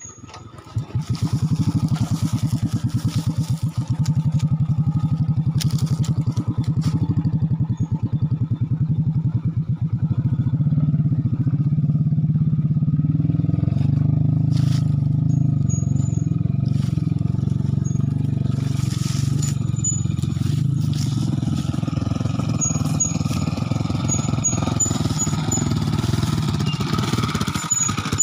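A small petrol engine starts running about a second in and keeps running steadily at low speed, with an even pulsing beat.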